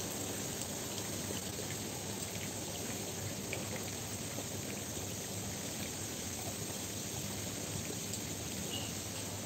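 Steady harbour-side background noise: an even hiss with a faint low hum underneath, with no single event standing out.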